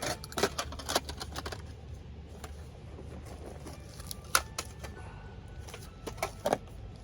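A series of sharp clicks and knocks in uneven clusters: several quick ones at the start, a single loud one past the middle, and two or three more near the end.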